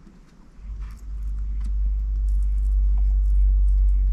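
Long threaded bolt pressed and rolled across aluminium tape to emboss a fish-scale pattern: a steady low rumble with faint scraping ticks, starting about half a second in.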